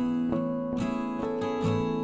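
Background music: an acoustic guitar picking a gentle run of notes, a new note every half second or so over ringing earlier ones.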